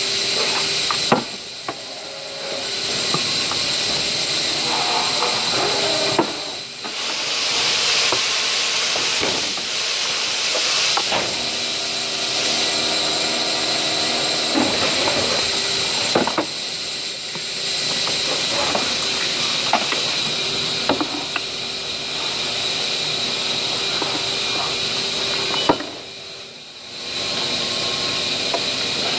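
Steady loud hiss that drops out briefly three times, with scattered clicks and knocks of plastic flower pots being handled and trimmed.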